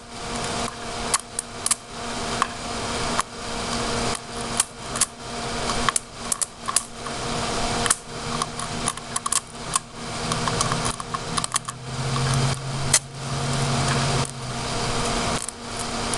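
Crackling, sizzling electrical arc from a wire fed by a 13.8 V, 23 A power supply, held against a motherboard's Northbridge chip and burning it. Sharp pops come irregularly throughout over a steady hiss and a faint hum, and a low buzz comes in for a few seconds near the end.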